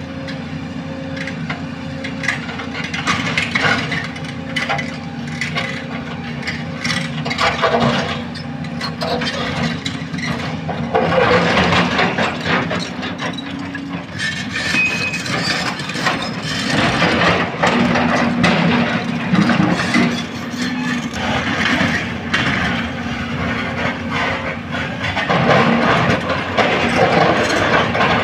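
Volvo EC210B crawler excavator working rock and soil: its diesel engine runs throughout while the bucket scrapes and knocks against stone and rocks clatter. It gets louder in stretches about eleven seconds in, again a little later, and near the end.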